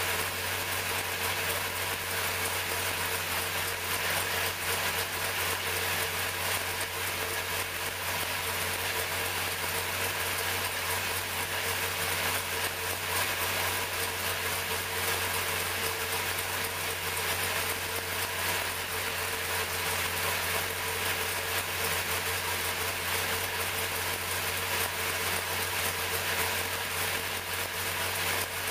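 434 cubic-inch small-block Chevrolet V8 racing engine idling steadily, with no revving.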